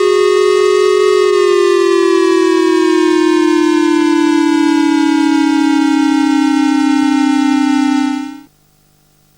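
Civil defense siren sounding a public warning: a steady tone whose pitch starts sliding slowly down about a second in and keeps falling until it cuts off abruptly near the end. A faint hum and hiss are left behind.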